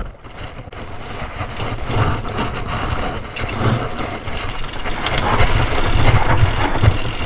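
Thrill Ravage 4.0 hardtail mountain bike riding down a dry dirt trail: knobby tyres rolling over dirt and leaf litter, with the bike rattling. The rumbling noise grows louder as it picks up speed.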